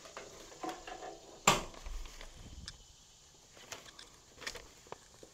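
A white plastic fold-down cup holder mounted on the camper wall is pushed shut by hand. It closes with one sharp snap about a second and a half in, with lighter plastic clicks and taps before and after.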